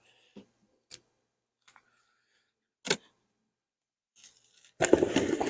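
Hive tool and wooden beehive frames clicking and knocking a few times while the hive is worked through, then a louder scraping rustle near the end.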